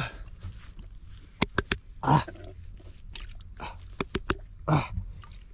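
Hands digging into wet mud under a cracked, dried-out crust: short wet squelches and sharp clicks of mud, two quick runs of three clicks about a second and a half in and again about four seconds in.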